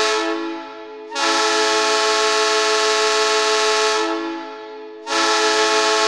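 Greenville Swamp Rabbits' arena goal horn blaring a steady multi-tone chord in repeated long blasts. Each blast lasts about three seconds and fades into a gap of about a second: one dies away early on, a new blast starts about a second in, and another starts about five seconds in.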